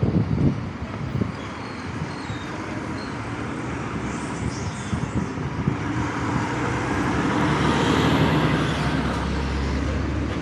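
Steady road and traffic noise heard from a ride on an electric motorcycle through city streets, with wind on the microphone. The noise swells to its loudest about eight seconds in and then eases off.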